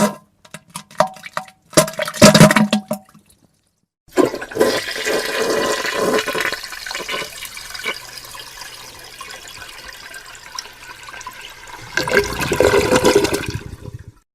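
A few short sudden bursts, the loudest about two seconds in. After a brief gap a toilet flushes for about ten seconds: a loud rush at first that eases off, surges again near the end and cuts off abruptly.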